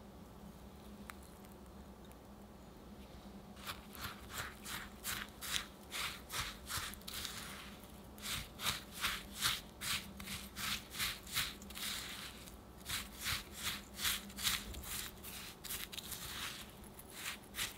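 Silicone spatula stirring crushed digestive biscuit crumbs with melted butter in a glass bowl: rhythmic scraping strokes, about two a second. The strokes start a few seconds in, with a short pause partway through.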